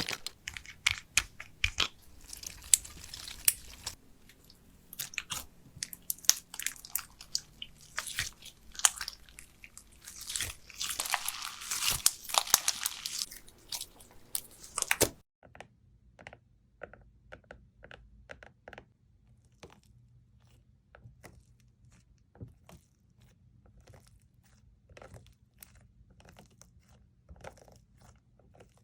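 Slime being squeezed and pressed by hand, making a dense run of crackling, popping clicks. About halfway through it changes abruptly to quieter, sparser clicks and pops.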